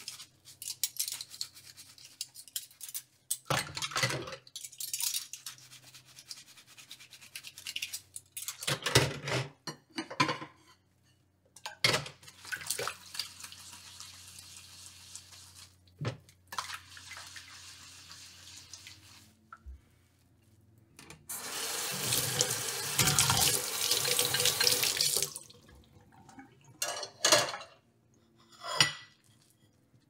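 Washing dishes at a kitchen sink: a tap runs in spells, loudest for about four seconds past the middle, with knocks and clatters of dishes in between.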